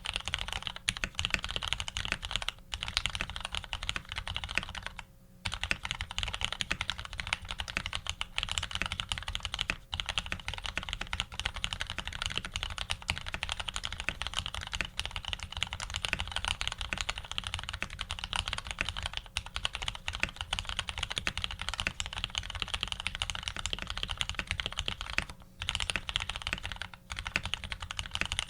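Continuous fast typing on an Ar87 custom mechanical keyboard fitted with lubed Retooled Black linear switches, an aluminium plate and PBT keycaps, with a few short pauses between runs of keystrokes.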